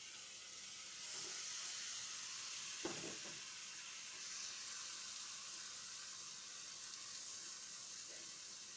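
Marinated chicken breast strips sizzling in a non-stick frying pan over low heat, a steady hiss of frying. About three seconds in there is a short sound of the utensil as the pieces are turned.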